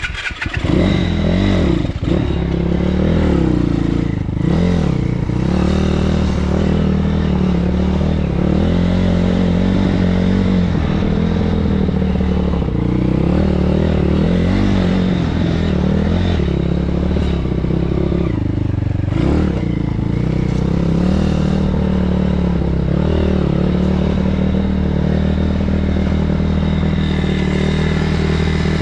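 BSE PH 150E pit bike's 150 cc single-cylinder engine running steadily as it is ridden, its pitch wavering a little with the throttle, with clattering and scraping from the bike over rough trail.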